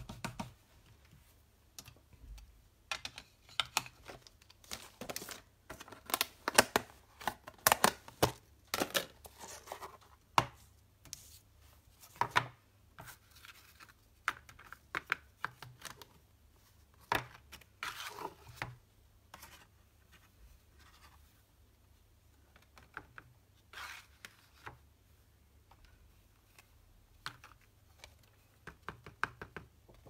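Irregular clicks, taps and scrapes of hands handling card stock and a plastic embossing powder tray on a craft mat, densest in the first half and sparser later.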